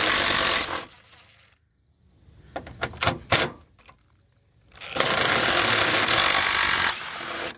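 Impact driver on a long extension hammering out the two lower fender bolts: a burst of rapid hammering that stops just under a second in, a few clicks, then a second burst of about two and a half seconds that cuts off near the end.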